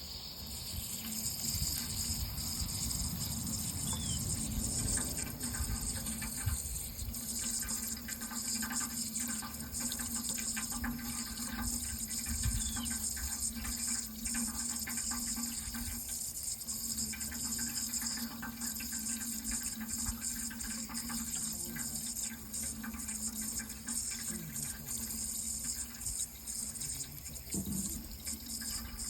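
Water running in a steady, continuous flow.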